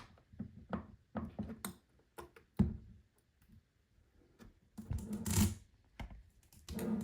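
Small metal clicks and knocks of a hand tool and a watch bracelet being handled and positioned on a workbench, with a louder scraping rustle about five seconds in.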